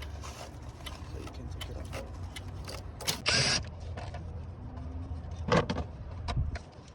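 Clicks and knocks of plastic connectors and a hose being unplugged from the top of an engine, with a short hissing scrape a little over three seconds in, over a steady low hum.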